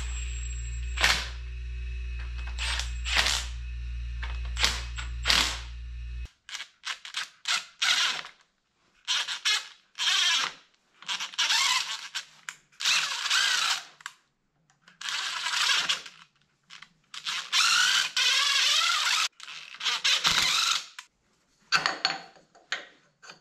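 Cordless power tools on an engine. For the first six seconds a compact cordless driver gives brief zaps as it snugs down the valve cover nuts, over a steady low hum. After that comes a series of separate whirring bursts from a cordless drill-driver, each up to about a second and a half long, with pauses between them.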